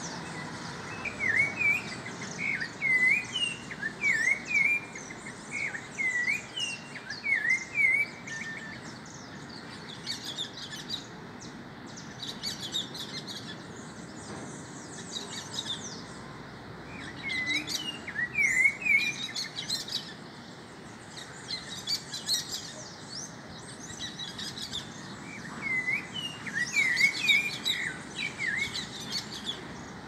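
Several wild birds calling in the trees. There are bouts of short, repeated whistled notes, about two a second, early on, in the middle and near the end, and clusters of higher, quicker chirping in between.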